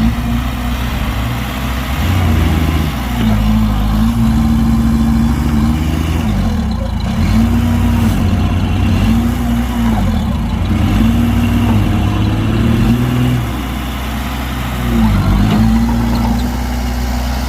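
Heavy diesel engine running hard, its pitch dipping and climbing back again and again as the revs are pulled down under load and recover. Near the end it eases off briefly, then picks up again.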